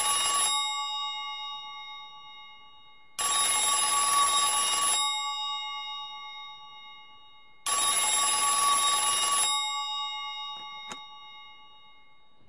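Telephone ringing in repeated rings about two seconds long and roughly four and a half seconds apart, each ring fading out slowly. A single faint click comes near the end.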